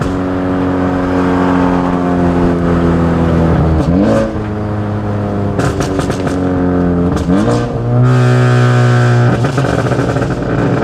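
Big-turbo Ford Focus ST's 2.0 EcoBoost four-cylinder accelerating through the gears, heard from inside the cabin. The revs drop and climb again at shifts about 4 and 7 seconds in. Each lift-off brings a rapid turbo flutter, since the blow-off valve has been deleted.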